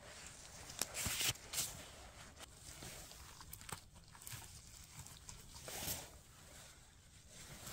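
Faint rustling and crackling of leaf litter and twigs on the forest floor, footsteps and handling while mushroom picking, with a few louder crackles, the biggest about a second in.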